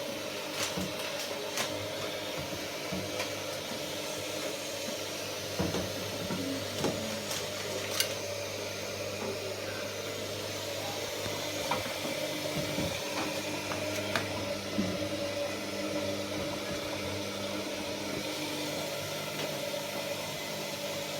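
A steady mechanical hum with scattered small clicks and knocks.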